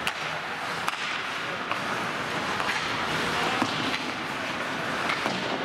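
Ice hockey play on the rink: a steady scraping hiss of skates on the ice, broken by several sharp clacks of sticks and puck.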